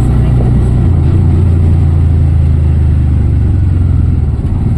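Auto-rickshaw engine running, its low engine note changing about a second in and again near the end.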